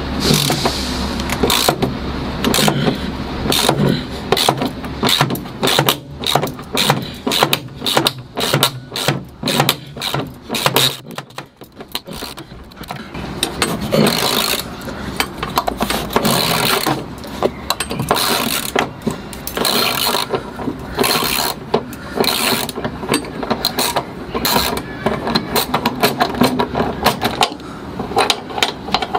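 Ratchet wrench clicking in quick runs, with short pauses, as the floor bolts of a metal seat frame in a van are turned.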